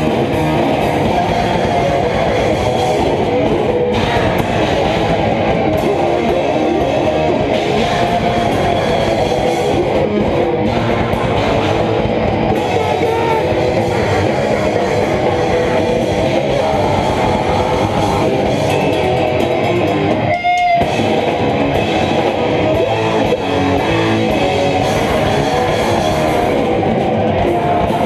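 Grindcore band playing live: loud distorted electric guitar over fast, dense drumming, with a brief break about twenty seconds in.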